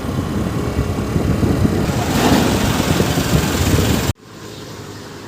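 Motor vehicle engine and road noise, loud and rough, cutting off abruptly about four seconds in to a quieter steady hum.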